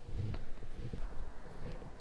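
Handling noise on the camera microphone: low rumbling with a few soft knocks as the pole-mounted camera and the fish are shifted between hands.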